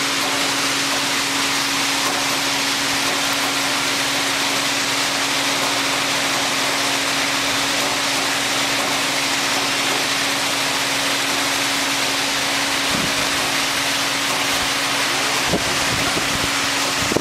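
Water rushing into a dry dock through the flooding inlets at the foot of the steel gate, a loud steady rush with a constant low hum underneath. A few light knocks near the end.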